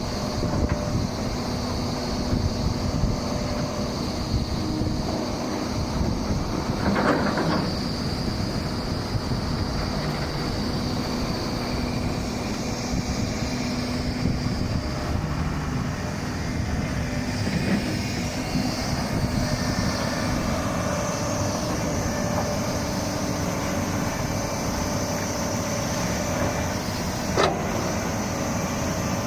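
Doosan 300LC-V excavator's diesel engine running steadily. There is a brief swell of noise about seven seconds in and a single sharp knock near the end.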